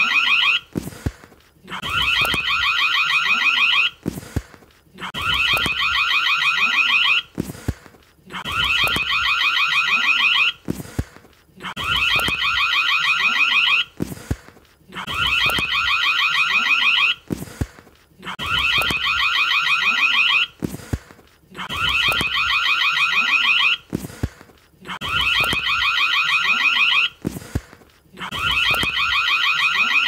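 Indoor doorbell ringing again and again, in bursts of about two seconds with a second's pause between, about ten in all. Each ring is a rapid trill that grows louder as it goes.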